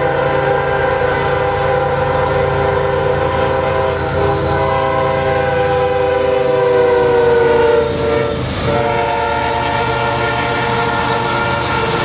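Diesel freight locomotive's multi-chime air horn sounding one long continuous chord over the rumble of the engine as the train approaches and passes. The horn's pitch slides down from about five seconds in and drops near eight seconds as the locomotive goes by, then it sounds on as the train rolls past.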